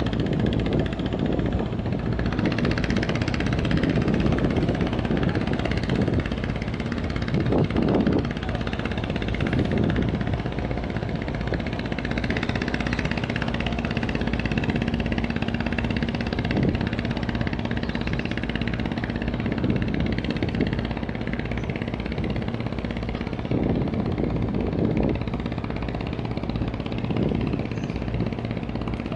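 Boat engine running steadily, with a low rumble and a steady hum through the middle.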